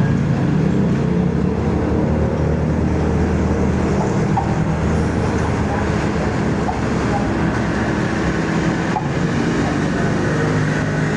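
Motor vehicle running steadily, a continuous low engine and road rumble.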